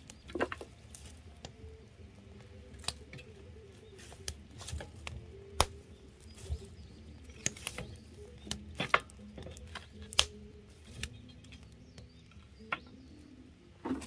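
Wood fire burning in the open firebox of a masonry stove, with a dozen or so sharp irregular pops and cracks and the knocks of a stick stirring the burning logs.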